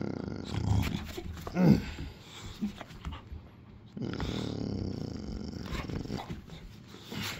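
Dog growling in play during a rope game: two long, low growls, the second starting about four seconds in, with one short louder vocal sound between them.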